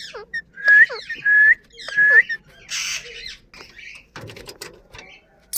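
Pet parrot vocalising: three short, clear whistled chirps, each rising at the end, then a harsh, noisy squawk about three seconds in, followed by softer scattered chatter.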